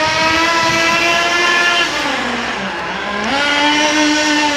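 Small SH .18 nitro engine of an HSP Camper RC buggy idling steadily during break-in; about two seconds in its pitch sags, then climbs back to the idle about a second later.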